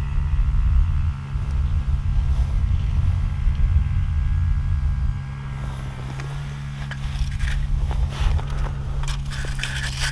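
Wind rumbling on the microphone over a steady low hum. From about six seconds in, crunching and scraping of snow and ice-fishing gear as hands work at the ice hole.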